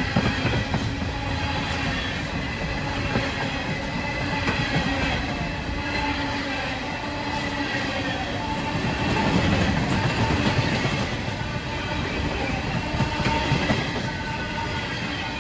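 Long CSX freight train of empty coal cars rolling past: a steady rumble and clatter of steel wheels on rail, with thin wheel squeal running through it.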